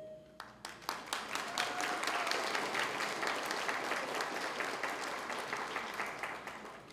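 Audience applauding: scattered claps swell into full clapping within the first couple of seconds, then die away near the end.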